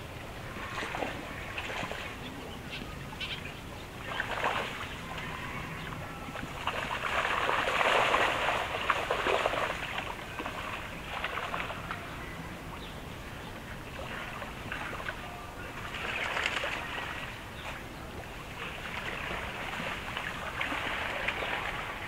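Outdoor ambience of splashing and sloshing water that swells and fades several times, loudest about eight seconds in.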